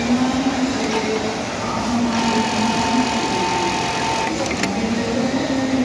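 Industrial hemming sewing machine running steadily while cloth is fed through it, with a continuous mechanical whir. A higher whine and hiss come in for about two seconds in the middle.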